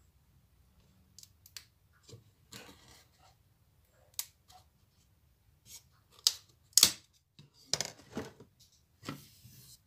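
Hands unwrapping a freshly veneered wooden dashboard rail: scattered short scrapes, rustles and clicks as wrapping and flat pieces are pulled off and laid on the wooden workbench, the sharpest a little before seven seconds in.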